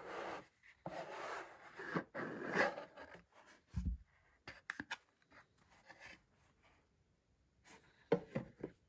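Cardboard rubbing and scraping as the inner tray of a drawer-style gift box is slid out of its sleeve, for about the first three seconds. A low thud a little under four seconds in, then light taps and rustles as the cotton dust bag is lifted from the tray, with a few sharper handling noises near the end.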